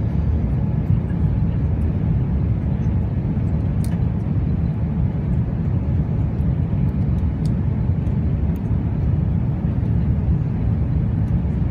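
Jet airliner cabin noise: a steady low rumble of the engines and rushing air, heard from inside the passenger cabin.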